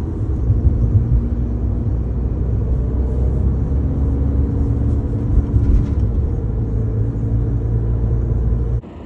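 Steady low rumble of road and engine noise inside a moving car's cabin, cutting off abruptly near the end.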